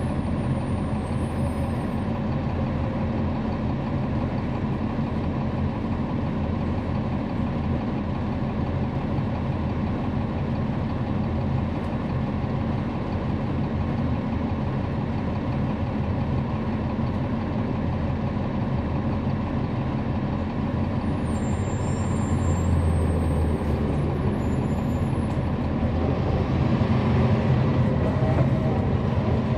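On-board sound of a 2011 NABI 416.15 transit bus powered by a Cummins ISL9 inline-six diesel with a ZF Ecolife six-speed automatic, running with steady engine and road noise. The noise grows louder about twenty-two seconds in and again near the end, with brief faint high squeaks along the way.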